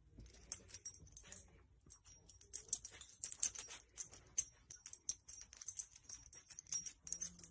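Light metallic jingling in many quick, irregular clinks, from the tags on a dog's collar as it moves about nosing a blanket. The clinks are sparse at first and come thick from about two seconds in.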